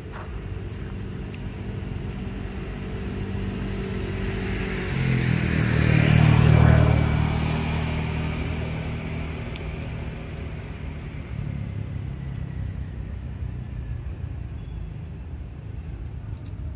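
A motor vehicle passing on the road: a low engine hum grows, is loudest about six to seven seconds in, then fades back to a steady low engine sound.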